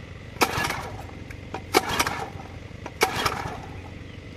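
Recoil starter of a Honda water pump's small engine pulled three times, about a second and a quarter apart, each pull a sharp snap followed by a brief cranking rattle; the engine does not catch.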